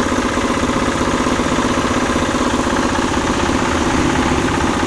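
An engine idling steadily with a fast, even throb, unchanged throughout.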